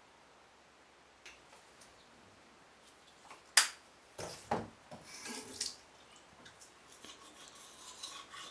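Toiletries being handled at a bathroom vanity: one sharp click about three and a half seconds in, then a second or so of clattering and rubbing. Near the end, faint scrubbing of teeth being brushed begins.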